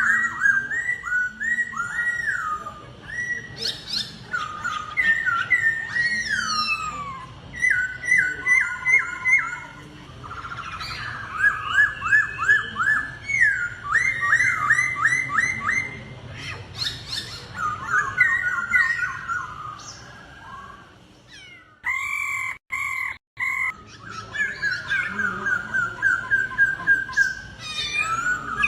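Laughingthrush (khướu) singing: fast runs of repeated whistled notes that slur downward, phrase after phrase, with short pauses between phrases and a brief break about two-thirds of the way through.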